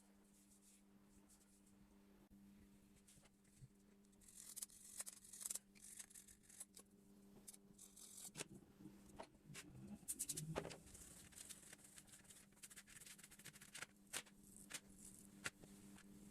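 Faint scattered clicks and scratchy scraping from hands-on work with small parts, heaviest in the middle, over a steady low hum.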